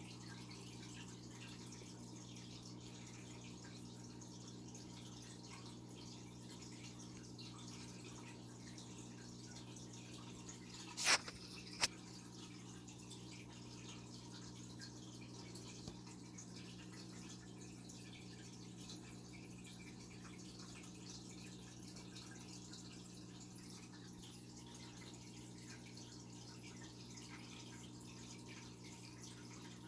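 Aquarium filter running: water trickling and dripping over a steady low hum. A sharp knock comes about eleven seconds in, then a lighter tap just after.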